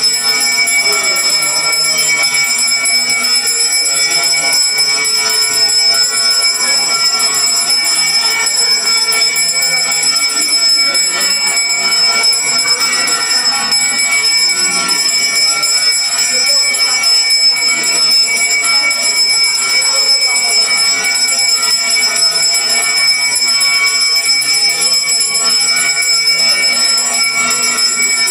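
Brass puja hand bell (ghanta) rung without pause for the arati, a loud, steady ringing with high, sustained overtones.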